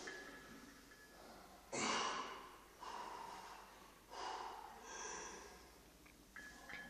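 A lifter breathing hard during a heavy barbell back squat set: one loud, sharp breath blown out about two seconds in, then several shorter, weaker breaths.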